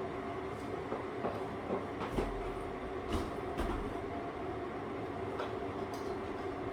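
Steady mechanical hum with a few fixed tones, typical of a running household appliance, with scattered light clicks and knocks of things being handled, the loudest about 2 and 3 seconds in.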